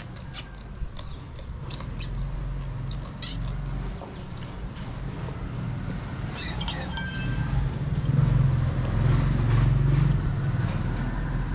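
Short clicks and scrapes of hand tools working the sole of a leather Peshawari chappal, most frequent in the first few seconds. A low rumble of street traffic grows louder in the second half.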